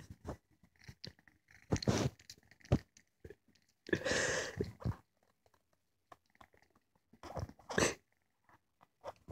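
Tabby kitten mouthing and chewing on a person's finger: soft chewing and snuffling in three short bursts, the longest about four seconds in.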